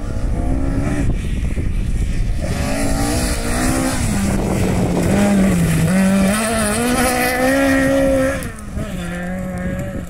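Rally car at speed on a gravel stage, its engine revving hard, the pitch dipping at gear changes. It is loudest as it passes about five to eight seconds in, then drops away as it goes off down the stage.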